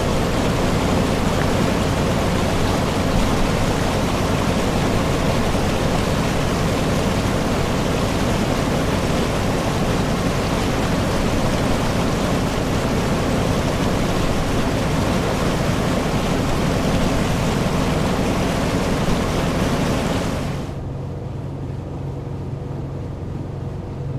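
Motor boat under way: its engine drones beneath a loud, steady rush of water and spray along the hull. About twenty seconds in, the rush cuts off suddenly, leaving the engine's steady low hum.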